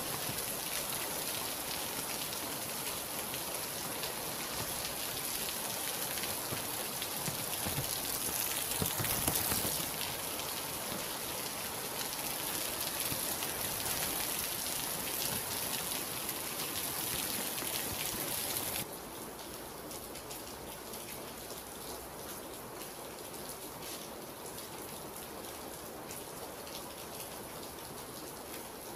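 Steady rain falling in a dense, even patter. About two-thirds of the way through it drops suddenly to a quieter, softer hiss.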